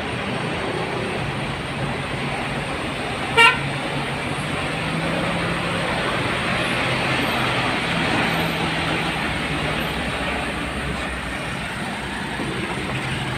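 A MAN heavy-haul truck with a low-loader passes slowly, its diesel engine running steadily and growing a little louder as it draws level. One short horn toot sounds about three and a half seconds in.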